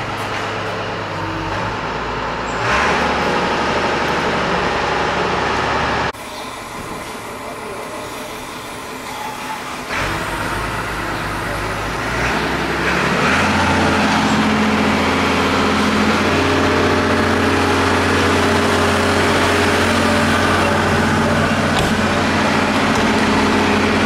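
Car engine running through a freshly fitted sport exhaust, giving a steady exhaust note. The engine speed steps up and down a few times, then holds higher and louder from about 13 seconds in.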